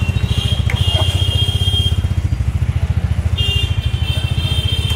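An engine idling with a steady, rapid low throb. A high-pitched whine comes in twice over it.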